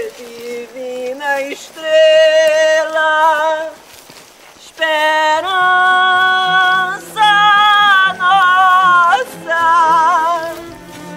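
A woman singing a slow, wordless melody in long held notes with vibrato, in phrases broken by short pauses. From about five seconds in, a low sustained accompaniment sounds beneath her.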